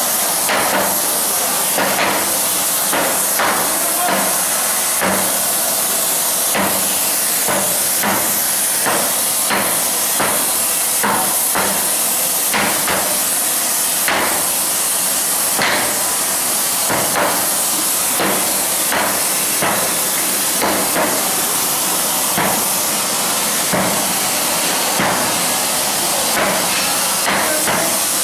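Sledgehammers striking a red-hot steel plate by hand, irregular blows about one to two a second, as a firebox tube plate is hand-flanged (dished) over a forming table. Under the blows runs a steady hiss from the gas torch flame heating the plate.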